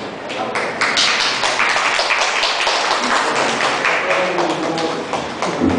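Hand-clapping from a small group of people, starting about a second in and going on as a dense patter of claps, with voices mixed in underneath.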